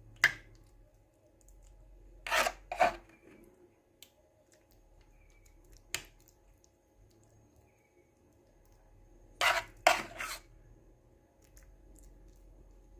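Several short scrapes and clicks of a spoon against a plate or bowl of mashed butternut: a pair a couple of seconds in, a single one near the middle, and a quick run of three towards the end.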